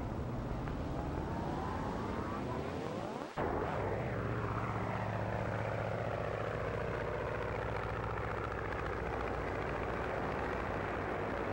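Biplane's radial engine running with the propeller turning. Its pitch climbs, cuts out abruptly about three seconds in, then returns and sinks slowly to a steady drone.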